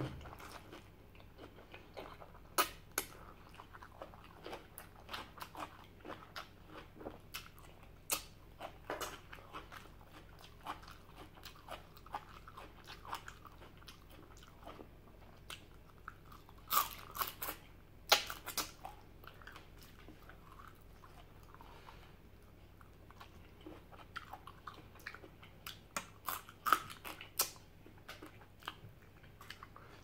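A person chewing and crunching food close to the microphone: irregular crisp crunches and mouth clicks, with a few louder bites in the middle and again near the end.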